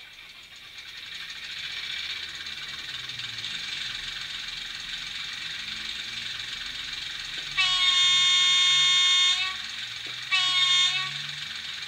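A LokSound 5 DCC sound decoder in a Hornby OO gauge Sentinel diesel shunter model plays the engine sound through the model's small speaker. The sound builds over the first two seconds, then runs steadily. About seven and a half seconds in, the playable horn on function F2 sounds for nearly two seconds, then once more briefly a second later.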